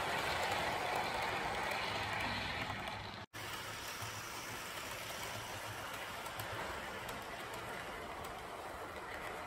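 Model train of a Lima Re 4/4 II locomotive and passenger coaches running along the track, a steady rolling noise. The sound cuts out for a moment about three seconds in and comes back a little quieter.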